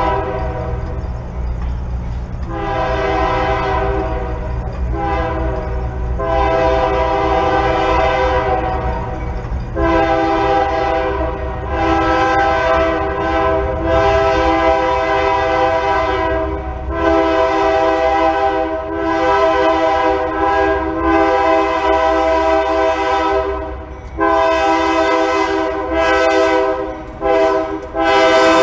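Union Pacific diesel locomotive's air horn sounding a long run of blasts, long and short, beginning with a long-long-short-long pattern, the grade-crossing signal. The low rumble of the approaching train runs underneath, and the horn is loudest near the end as the locomotive passes close by.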